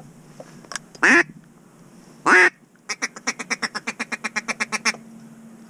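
Duck quacking: two loud drawn-out quacks, then a rapid run of short quacks at about nine a second for some two seconds.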